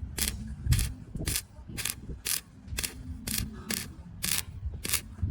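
Repeated short, sharp strokes, about two a second, over a low rumble.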